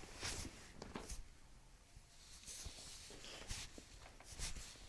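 A few faint, brief rustles of hands and clothing shifting on a chiropractic treatment table, in a quiet small room.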